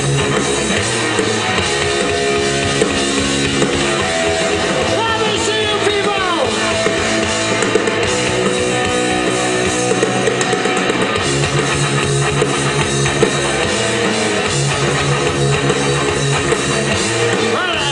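Live rock band playing an instrumental passage: guitar over drums and bass, with a falling slide on one note about five seconds in.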